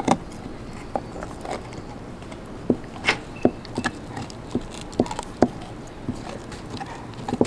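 Young Belgian Malinois gnawing a raw beef rib: irregular sharp clicks and crunches of teeth on bone and meat, the loudest about three seconds in.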